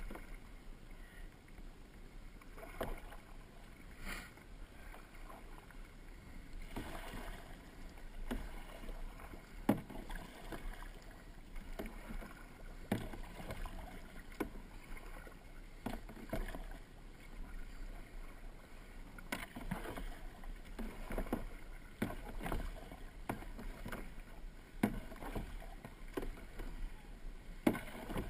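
Kayak paddle strokes dipping and splashing in the water, an irregular series of short splashes about every second or so over a steady low rumble.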